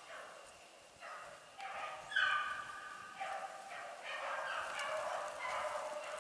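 A pack of beagles baying as they run a rabbit's trail. Several dogs' drawn-out cries overlap, and the loudest comes about two seconds in.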